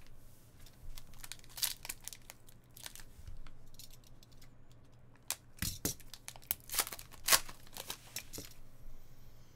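Foil wrappers of trading-card packs crinkling and tearing as they are opened, a run of sharp crackles with the loudest ones in the second half.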